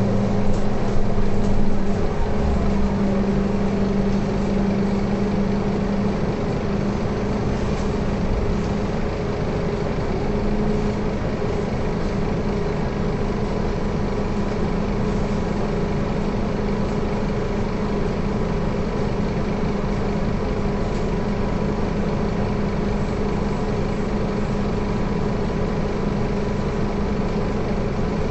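Scania K230UB city bus's rear-mounted diesel engine idling steadily, heard from inside the passenger cabin. It is a little louder and unsettled for the first couple of seconds, then holds an even idle.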